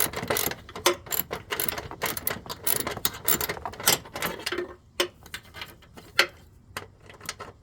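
Hand ratchet clicking in quick runs as it backs out a 10 mm ground-cable bolt. The clicking is dense for the first four seconds or so, then comes in sparser clicks.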